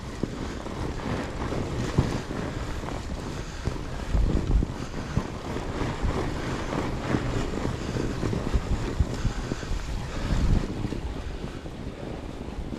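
Wind buffeting an action camera's microphone while riding a fat bike, over a steady rumble of the bike moving along the trail; the heaviest gusts come about four seconds in and again around ten and a half seconds.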